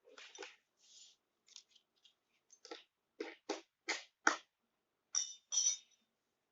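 Hands handling a smart speaker's power adapter and cable and their plastic packaging: a series of short rustles and sharp clicks, with a quick run of four clicks in the middle and two crinkly rustles near the end.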